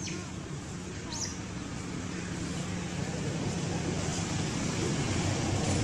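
Steady rumbling background noise with a low hum, growing slightly louder towards the end, with two faint short high squeaks, one at the very start and one about a second in.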